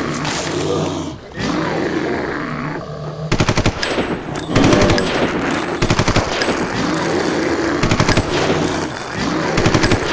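Rapid bursts of automatic rifle fire, repeated several times, from the character's M4 carbine.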